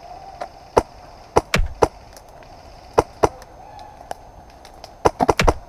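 Airsoft gunfire: a dozen or so sharp, irregular cracks of shots and BBs striking close by, spaced out at first and bunching into a quick flurry near the end.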